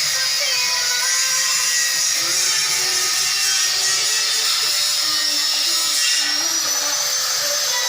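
Steady, high-pitched whine of a machine or power tool running continuously in a workshop, with background music playing beneath it.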